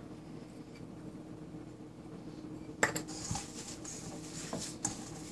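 Hands mixing crumbled paneer and mashed potato in a stainless steel bowl. A quiet stretch with a faint steady hum is broken about three seconds in by a sharp metal clink, followed by soft squishing and rustling with a couple of light knocks on the bowl.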